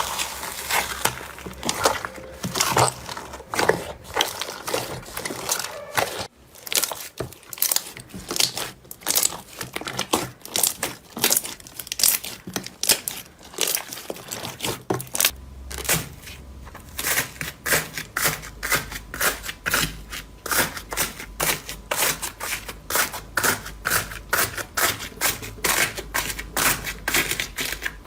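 Slime being squeezed and pressed by hand, making a dense run of crunchy crackles and pops. There is a brief lull about six seconds in, and in the second half the crackles come at a steady pace of about three a second.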